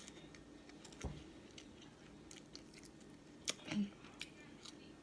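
Close-miked mouth sounds of chewing seafood: scattered wet clicks and lip smacks, with a soft thump about a second in and a short cluster of smacks near the end.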